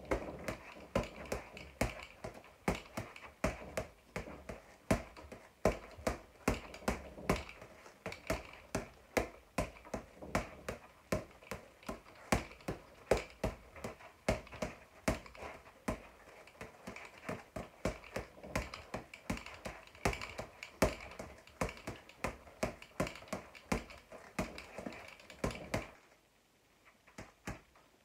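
Boxing gloves punching a floor-to-ceiling ball: sharp slaps several times a second in an uneven rhythm, with a short pause near the end.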